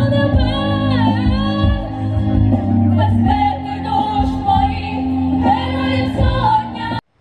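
A vocal group singing a song over backing music, held sung notes over a steady bass accompaniment; it cuts off abruptly near the end.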